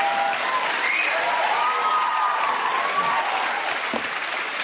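Studio audience applauding, an unplanned applause break, with a few voices calling out over the clapping.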